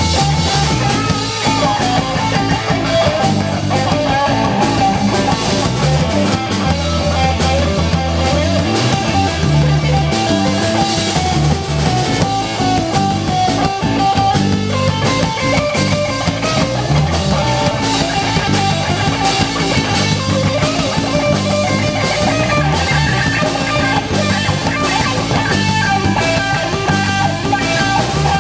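Live blues-rock band playing a twelve-bar blues, with an improvised electric guitar solo over bass and drum kit.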